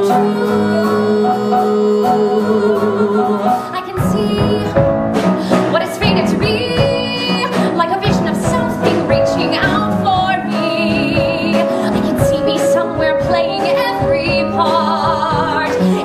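Live show-tune accompaniment from a musical theatre duet, with rhythmic strummed or struck chords under long held notes that waver with vibrato.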